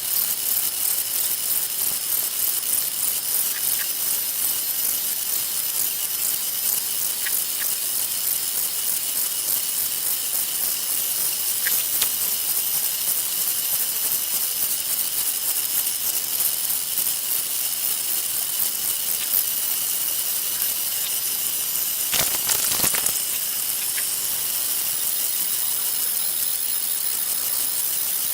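3D printer running: a steady fan hiss with high, steady whines from its motors, a few faint ticks, and a brief louder rustle or clunk near the end.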